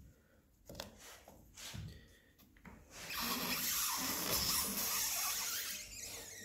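The heated blade of a PS15 TruckStar Plus tyre regroover slicing a groove into the rubber sidewall of a Bel-160M tyre. It makes a steady rasping hiss that starts about three seconds in and lasts about three seconds, after a few soft handling sounds.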